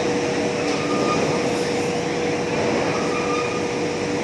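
Steady, loud industrial noise of an electric arc furnace melt shop, a continuous machinery rumble with a constant hum running through it.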